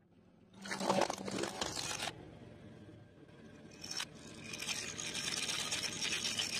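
Plastic toy scraped and crackling against concrete as it is handled. There is a burst of crackling about a second in, a sharp click about four seconds in, then a longer hissing scrape as the toy is pushed about.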